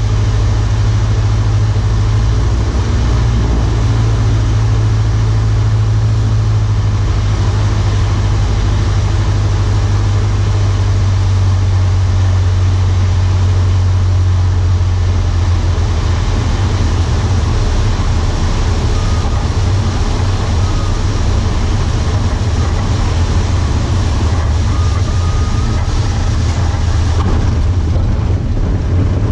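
Cessna 152's four-cylinder Lycoming engine and propeller droning steadily, heard from inside the cockpit during final approach and landing.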